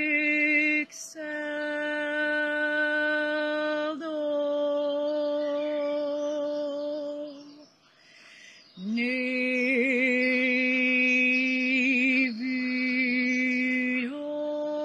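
A woman singing galdr, the Scandinavian runic incantation style: long drawn-out held tones on a steady pitch with short breaks between them. About eight seconds in she pauses for a breath, then comes back in with a swoop up into a wavering, trembling note before settling on a steady tone again.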